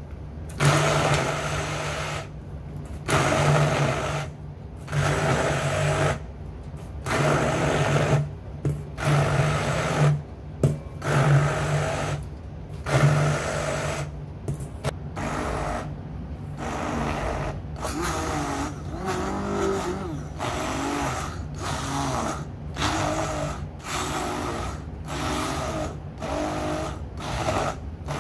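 Stick blender pulsed on and off in bursts of one to two seconds, its motor whirring as the blade chops roasted peanuts in a stainless steel bowl. The bursts grow shorter and come faster toward the end as the nuts break down to a coarse meal.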